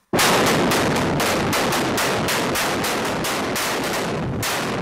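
Blasting in a gypsum mine: a rapid string of explosive charges going off one after another, about four cracks a second over a continuous rumble. The detonations stop shortly before the end and the rumble dies away.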